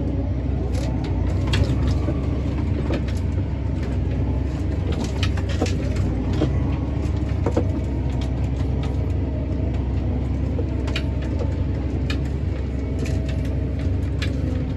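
Tractor engine running steadily, with scattered light clicks and rattles over it.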